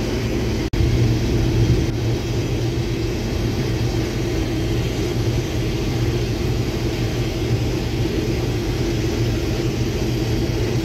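Steady drone of a heavy diesel vehicle's engine heard from inside its cab, with a brief dropout just under a second in.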